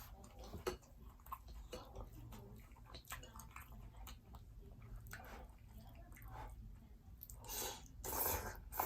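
Close-up chewing and biting of fried seafood, with many small wet mouth clicks, and two louder bursts of noise near the end.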